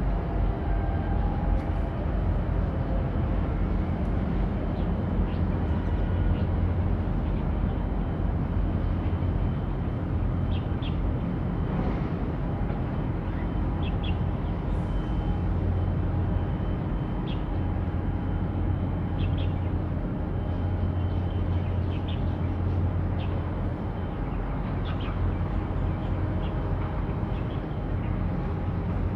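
Steady low engine rumble from a harbour tug and cargo ship manoeuvring, swelling and easing slightly, with faint short bird chirps now and then.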